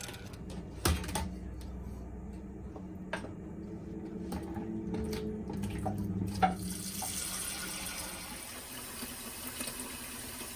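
Water running from a kitchen tap into a sink, turning to a fuller, brighter hiss about two-thirds of the way through, with scattered clicks and knocks of dishes.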